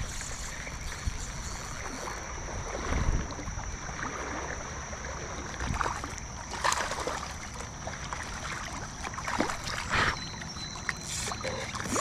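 A hooked smallmouth bass thrashing and splashing at the water's surface while being reeled in: several sharp splashes over a steady hiss.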